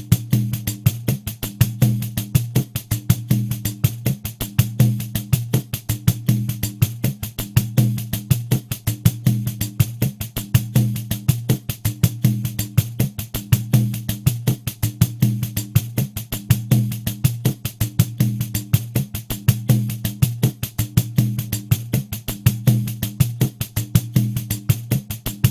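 Pandeiro playing a steady samba groove at 80 BPM: an unbroken run of even strokes, about five a second, the jingles ringing bright over the deep tone of the head.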